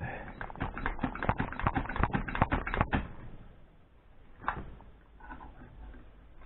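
Small metal parts of a Zenith VN carburettor clicking and rattling as they are handled and worked by hand, a quick run of clicks for about three seconds, then one more click a little later.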